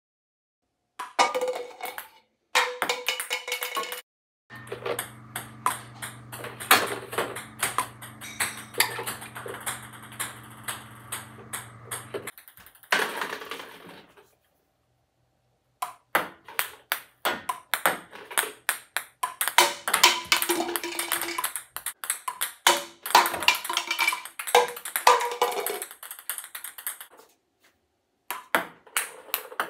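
Ping pong balls bouncing and being hit: many quick, sharp plastic clicks off the table, paddle and floor, in several short bursts broken by abrupt silent cuts. A steady low hum runs under the clicks for several seconds in the first half.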